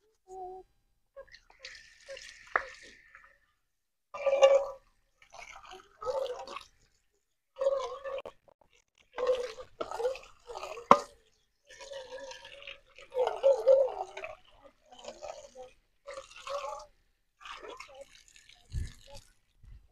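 Aluminium cooking pot being scrubbed by hand and rinsed with tap water: wet rubbing and splashing in short, irregular bursts.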